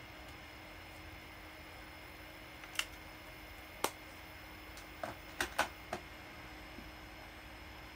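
About six short, sharp clicks and taps, scattered between about three and six seconds in, the last four close together. Underneath is a steady faint hiss with a thin electrical whine.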